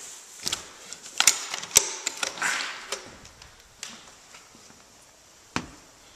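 An exterior door to a wooden deck being unlatched and opened: several sharp clicks and knocks from the knob and latch in the first two seconds, a brief rush of noise, then a few faint steps and one louder thump on the deck boards near the end.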